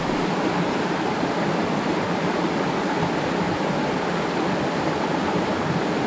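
Creek water running steadily over and between a low line of rocks in a shallow riffle, an even, unbroken rush.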